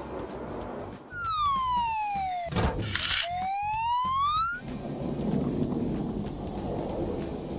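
Cartoon sound effects for an overhead crane. A whine glides down in pitch for about a second and a half, there is a clunk in the middle, and then the whine glides back up. A low mechanical rumble follows in the second half.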